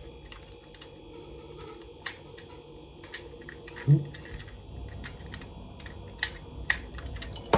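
Light plastic clicks and taps, irregular and spread apart, as a Bluetooth cassette adapter and its cable are handled and a plug is pushed into it.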